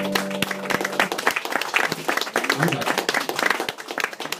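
A small audience clapping at the end of a song, while the band's last held note dies away about a second in; the applause thins out toward the end.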